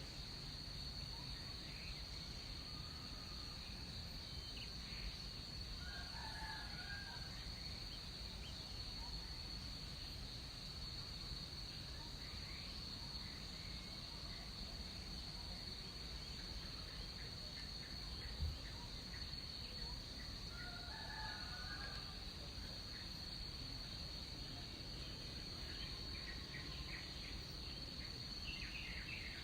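Faint jungle morning ambience: a steady high-pitched insect drone over a low rumble, with two short, distant bird calls, one several seconds in and one about two-thirds through, and a brief low knock between them. A few quick chirps come in near the end.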